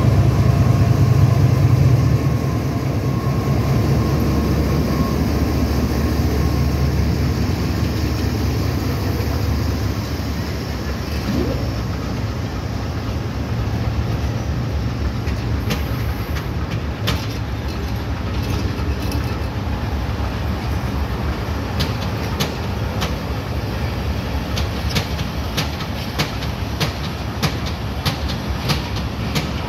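Pakistan Railways GEU-40 diesel-electric locomotive departing, its engine running loudly as it passes during the first two seconds. Then passenger coaches roll past with a steady rumble, their wheels clicking over the rail joints, the clicks coming more often in the second half.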